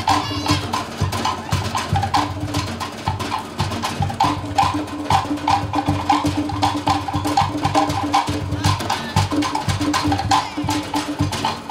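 Cook Islands drum ensemble playing a fast, driving rhythm: rapid pitched knocks on wooden slit drums (pate) over low beats from a large skin bass drum (pa'u).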